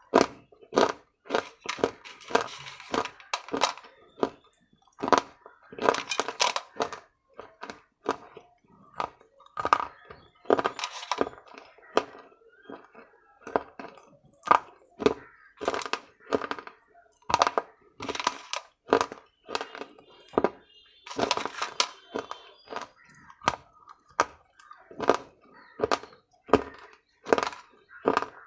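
Close-up crunching of something hard and brittle being bitten and chewed: sharp cracks, one every half second to a second, some in short crackly clusters.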